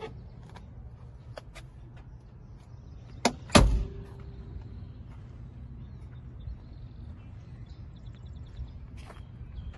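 A classic Porsche 911 Targa's door being shut: a sharp click and then a heavy thud with a short ring, about three and a half seconds in, over a steady low rumble.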